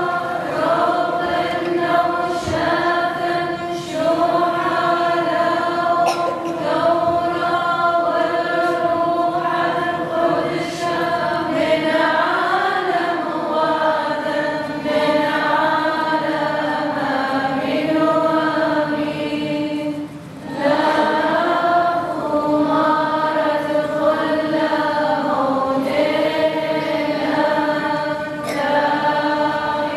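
Church choir singing a liturgical chant in long held phrases, with a short break about twenty seconds in.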